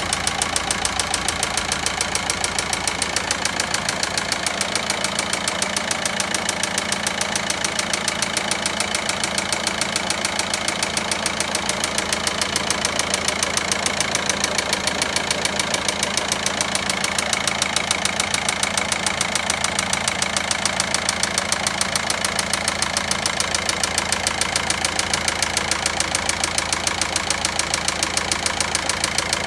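Volkswagen Passat 1.9 diesel engine idling with a fast, even knocking: the abnormal engine noise under diagnosis.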